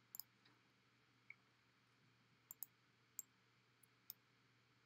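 Faint, sparse clicks of a computer mouse, about nine in all, a couple of them quick double clicks, as items are selected on screen, over a quiet room hum.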